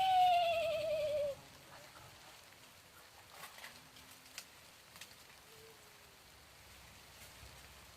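A single high, wavering wail about a second and a half long at the start: it swells, holds, then sinks in pitch with a trembling quiver. After it comes only the faint patter of light drizzle.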